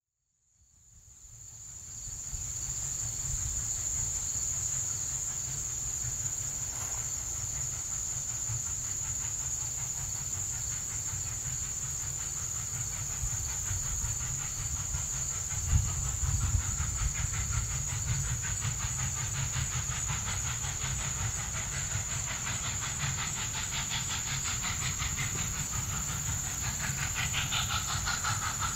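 Norfolk and Western 611, a class J 4-8-4 steam locomotive, working a passenger train in the distance. Its exhaust and steam hiss grow louder and more rhythmic from about halfway through as it draws nearer, under a steady high-pitched drone.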